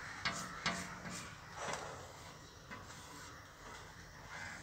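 Faint chalk on a blackboard: two light taps of the chalk near the start, then a short scratchy stroke as the wing shapes are filled in.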